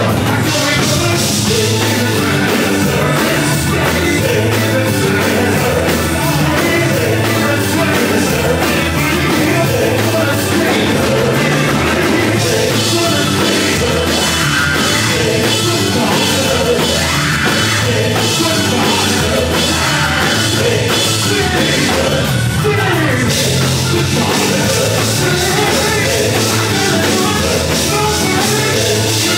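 Live gospel band playing loudly and steadily: electric bass, keyboards and organ, and a drum kit with cymbals.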